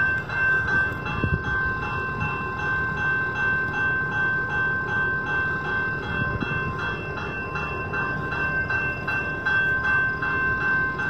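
Railroad crossing bell ringing in rapid, even strikes, over a low rumble.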